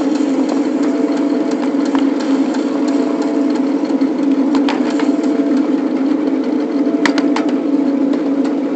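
Ride-on 1/8-scale backyard-railroad locomotive running steadily along the track, a loud even mechanical drone, with a few sharp clicks spaced a couple of seconds apart.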